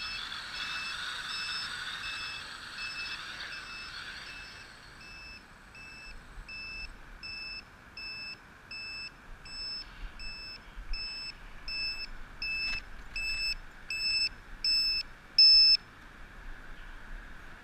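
A multirotor drone's electronic beeper sounding a short high beep about twice a second, steady and regular, until it cuts off suddenly near the end. Over the first few seconds the whir of its propellers fades away as the drone settles on the ground.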